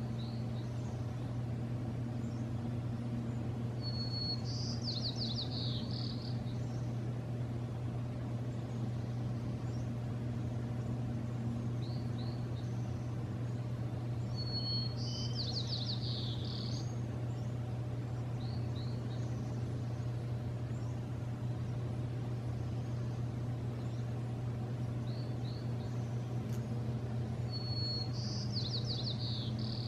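A songbird sings the same short song three times, about eleven seconds apart: a high note followed by a quick falling trill, with a few softer chirps in between. A steady low hum runs beneath.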